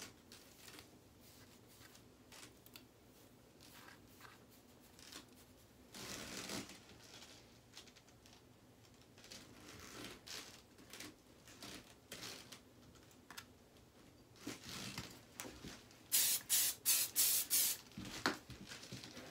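Teasing comb rasping through long hair in repeated short back-combing strokes. Near the end comes a quick run of about six loud, short hissing bursts.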